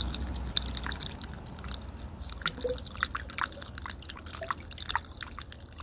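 Coolant being poured into a Yamaha YZ85's radiator filler neck: liquid gurgling, with irregular small drips and plops.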